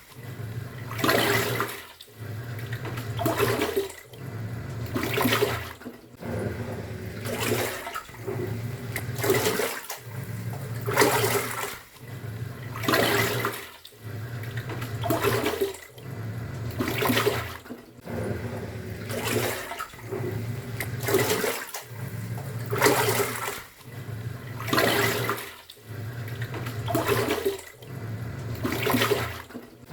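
Top-loading pulsator washing machine in its wash cycle, churning water. A low motor hum alternates with a swishing surge of water about every two seconds as the pulsator reverses direction.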